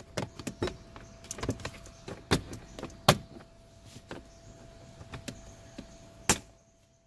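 Hard plastic dashboard storage case being fitted back into its slot: a run of irregular plastic clicks and knocks, the sharpest about three seconds in and again a little after six seconds.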